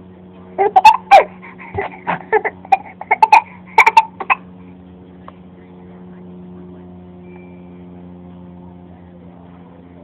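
A young child fake-coughing: a run of short, loud voiced coughs lasting about four seconds, then stopping. A steady low hum runs underneath.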